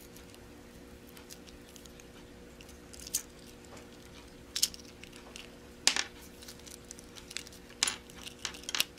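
Scattered small clicks and taps from handling a wire leader, metal swivels and a foam popper body while assembling a fishing lure, a handful of sharp ticks with a cluster near the end, over a faint steady hum.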